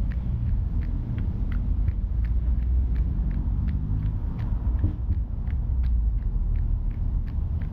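A runner's footsteps on wet pavement, an even beat of about three steps a second, over a steady low rumble of street traffic and wind on the camera's microphone, which swells briefly about halfway through.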